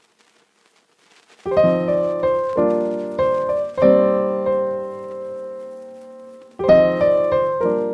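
Background piano music: chords struck and left to ring and fade, starting about a second and a half in after a near-silent opening.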